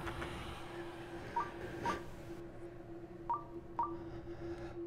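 Horror sound-design ambience: a steady low hum, with pairs of short high pings that step up in pitch, one pair about every two seconds.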